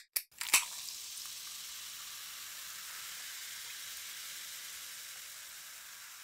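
Food frying in hot oil: a few sharp pops at the start, then steady sizzling that slowly fades near the end.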